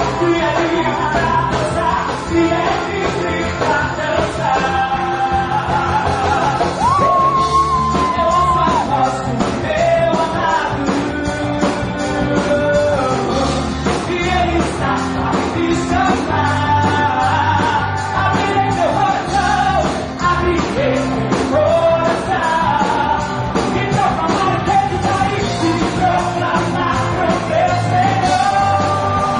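Loud live worship music: a band with drums plays while voices sing and shout, with yells over the top. It is the congregation's jubilant, noisy praise.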